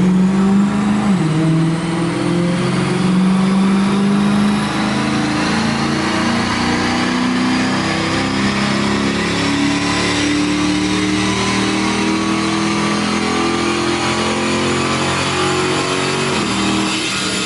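V8 car engine running hard on a chassis dyno, revving under load, its pitch changing in steps.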